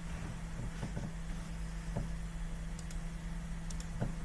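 Low steady electrical hum of the recording room, with a few faint clicks scattered through.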